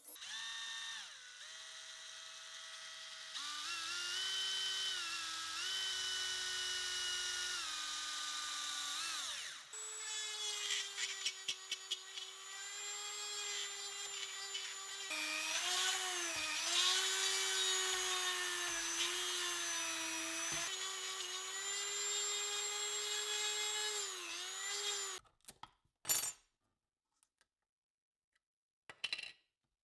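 A DeWalt 18V brushless cordless drill whines as it bores into a wooden handle blank, its pitch stepping up and down with the trigger. About ten seconds in, a handheld rotary tool takes over, its whine dipping and wobbling as the bit bites into the wood. It stops sharply about 25 seconds in and is followed by a sharp click.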